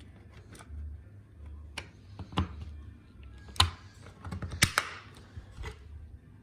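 Plastic clicks and snaps from a Chevy Silverado master power window switch as its cover piece is pressed back into place, with two sharp snaps standing out near the middle.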